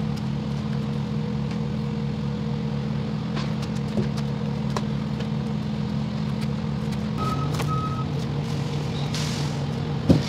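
Semi-truck diesel engine idling steadily, with a few light clicks. About seven seconds in comes a short electronic beep broken once in the middle, like a backup alarm, and a brief hiss of air follows a second or so later.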